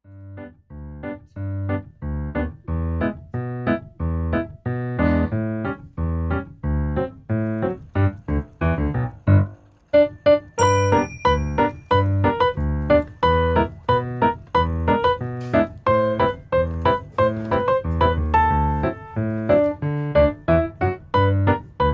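Background music: a piano-like keyboard melody in short, evenly spaced notes, growing fuller and louder after a brief dip about ten seconds in.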